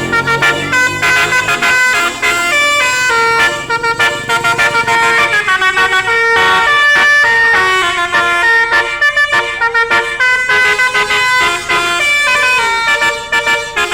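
Multi-tone 'telolet' musical bus horn playing a quick tune, its notes stepping up and down in pitch every fraction of a second.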